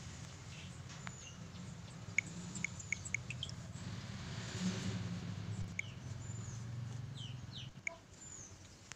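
Small birds chirping faintly: scattered short chirps and a few quick falling calls, over a low steady hum.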